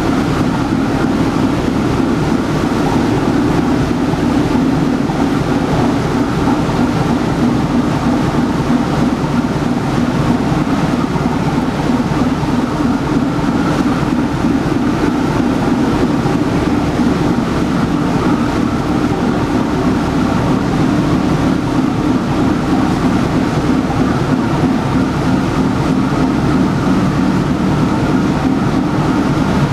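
Diesel engine of a push boat running steadily under power, with its propeller churning the water in the lock chamber. A loud, even drone that does not change.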